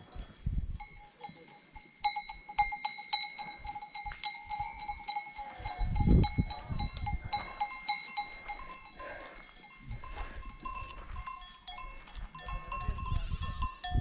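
Bells on a herd of goats ringing and clanking, busiest in the first half, with a low thump about six seconds in.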